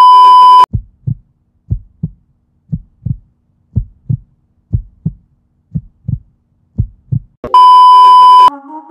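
Heartbeat sound effect: seven double thumps, lub-dub, about one a second. It sits between two short, loud, steady test-tone beeps of the kind played with TV colour bars, one at the start and one near the end.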